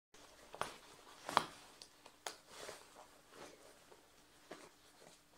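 A handful of faint rustles and soft clicks as a person shifts and moves in a waterproof jacket, over a faint steady hum.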